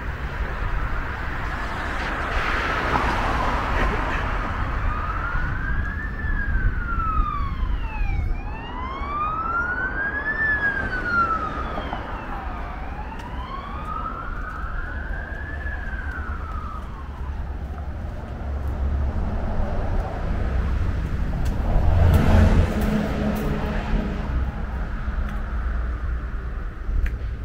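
Emergency vehicle siren wailing, rising and falling slowly over a few seconds per cycle, and dying away after the middle. Steady road traffic rumble underneath swells to its loudest a little over three-quarters of the way in.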